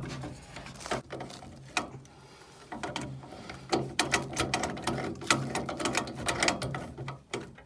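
Quick runs of light metallic clicks and rattles as the threaded nuts of a combi boiler's isolation valves are spun on by hand onto the brass connection tails.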